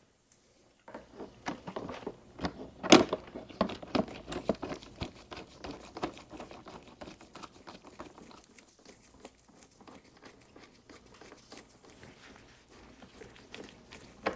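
Irregular clicks, taps and rustling of gloved hands and a screwdriver handling a plastic motorcycle wind deflector as it is fitted back onto the fairing, with one sharp knock about three seconds in.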